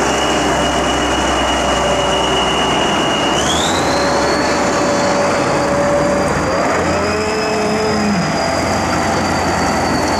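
Kirovets K-701 tractor's big diesel engine running under load as the tractor drives off, with a steady high whine that steps up in pitch about three and a half seconds in and then holds.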